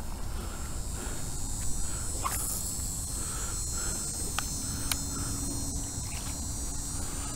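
Wind rumbling on the microphone, with a steady high insect buzz above it and a few faint ticks. A low steady hum comes in about halfway through.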